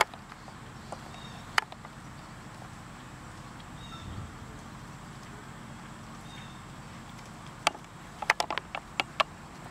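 Horse's hoofbeats on the sand arena footing, heard as a single sharp click about a second and a half in and a quick, irregular run of clicks near the end, over a steady outdoor background.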